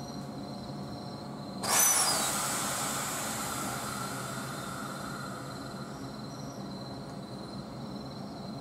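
Ex-Kintetsu 16000-series electric train standing at the platform with a steady low hum. A sudden loud hiss of compressed air venting from its pneumatic system comes about two seconds in and fades away over several seconds.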